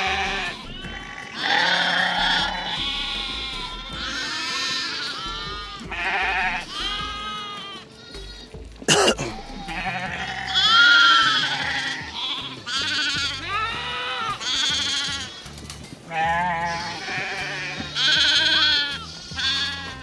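A mixed herd of sheep and goats bleating at feeding time, many overlapping calls one after another. There is a single sharp knock about nine seconds in.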